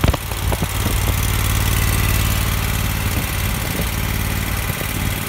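Kohler engine of a Schweiss zero-turn mower running steadily. A few sharp clicks sound in the first second.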